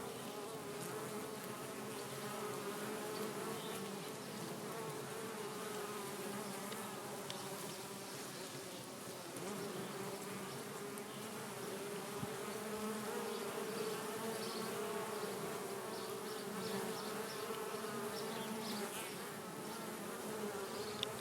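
Many honey bees buzzing together in a steady, dense drone, with a slightly wavering hum.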